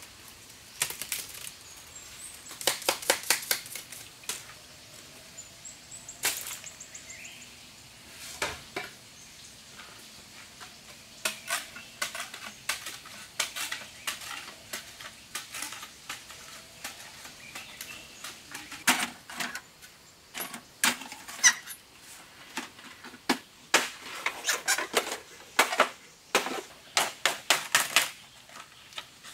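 Green bamboo being split and worked with a knife: several runs of quick, sharp clicks and cracks, broken by short pauses.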